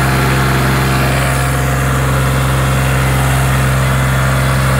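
Sonalika DI 35 tractor's three-cylinder diesel engine running steadily while the tractor works under heavy load, heard from the driver's seat.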